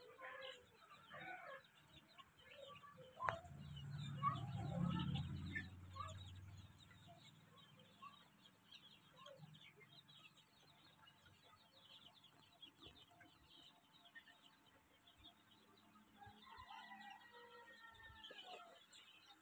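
A flock of young Sonali chicks, about three weeks old, cheeping in many short, faint calls. A low rumble swells from about three and a half to six and a half seconds in, and a few longer calls stand out near the end.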